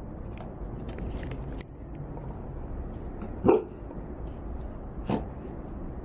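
A dog barks twice, about a second and a half apart, the first bark the louder.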